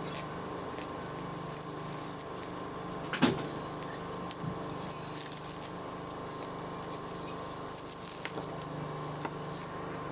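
A sharp bite into a lump of natural chalk about three seconds in, followed by a few faint crunches and soft chewing sounds, over a steady background hum.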